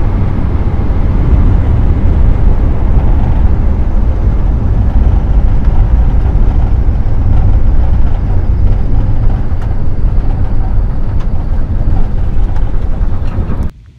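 Floatplane's engine and propeller running steadily, heard from inside the cabin as a loud, low drone, cutting off suddenly near the end.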